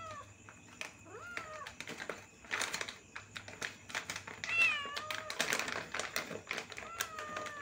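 A domestic cat meowing four times, short calls that rise and fall in pitch, the loudest about halfway through. Sharp clicks and taps sound between the meows.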